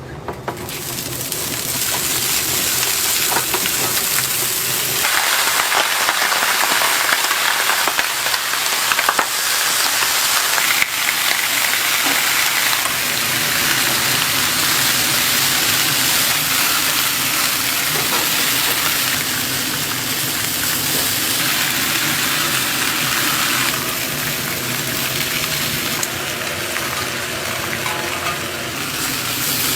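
Hot dogs frying in hot oil: a loud, steady sizzle that swells over the first couple of seconds and holds.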